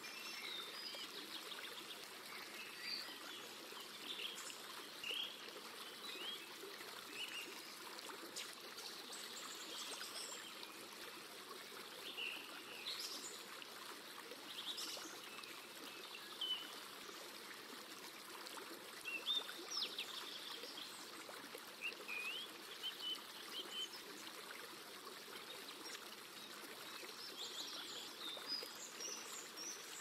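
A stream running steadily, with small birds chirping now and then.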